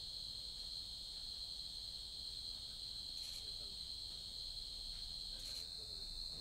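Steady high-pitched insect chorus droning on without a break, with a few faint ticks.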